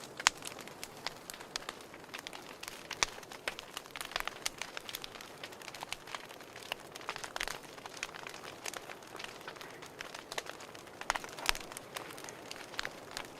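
Wood fire crackling in a fireplace: irregular sharp pops and snaps, a few a second and some louder than others, over a soft steady hiss.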